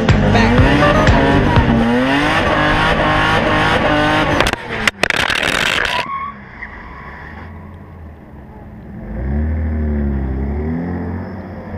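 Supercharged Lexus IS 200 straight-six revving hard up and down while drifting, with loud tyre noise. About six seconds in the sound drops abruptly to a quieter engine note with wind on the microphone, which swells with one more rev near the end.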